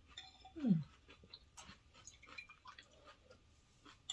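Close-up eating sounds of pho noodle soup being chewed and slurped, with many small clicks. About half a second in comes a short, louder vocal sound that falls in pitch.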